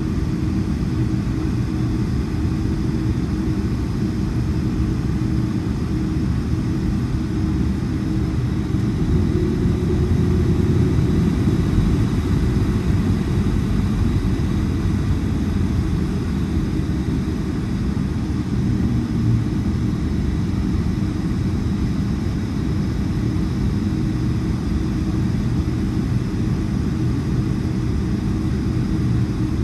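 Steady low rumble of a Boeing 757-300's Rolls-Royce RB211 engines and airflow, heard from inside the cabin, swelling slightly about ten seconds in.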